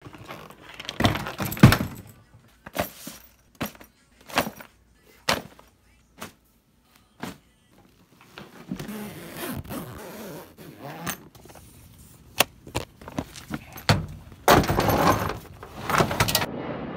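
A hard-shell plastic suitcase being handled and opened: a series of sharp knocks and clicks from the shell and its fittings, then longer stretches of scraping and rustling, with a louder rustling stretch near the end.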